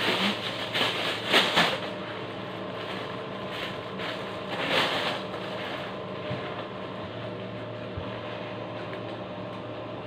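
Thin plastic bag rustling and crinkling in short bursts as leafy mustard greens are handled and packed into it, loudest about a second in and again near five seconds. A steady low hum runs underneath.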